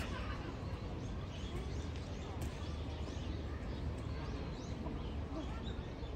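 Small birds chirping over and over in short, high calls, over a steady low outdoor hum and faint murmur of voices.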